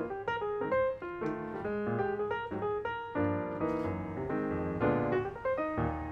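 Background piano music playing a quick, busy run of notes.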